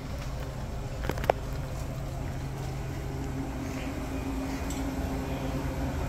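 Loaded utility cart of snack crates rolling over carpet: a low steady rumble, with a couple of sharp clicks about a second in.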